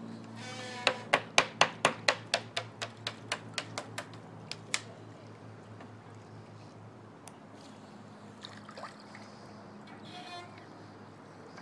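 Sea otter banging a shell against a boat to crack it open: a rapid run of sharp knocks, about four or five a second, that stops about five seconds in, over a low steady hum.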